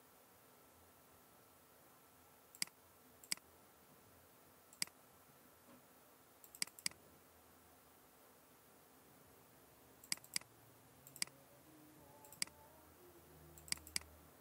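Computer mouse button clicking: about eleven sharp single clicks at irregular spacing, several of them in quick pairs.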